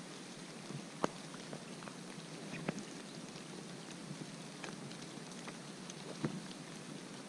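Steady light rain, with irregular sharp taps of drops landing close by every second or so.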